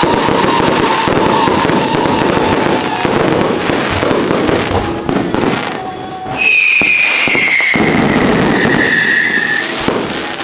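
An aerial fireworks display: shells bursting and crackling continuously overhead. A long whistle comes in about six seconds in, sliding slowly down in pitch, and cuts off near the end.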